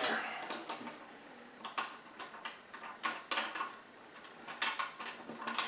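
Scattered light clicks and clinks of small metal hardware being handled: washers going onto toilet flange bolts.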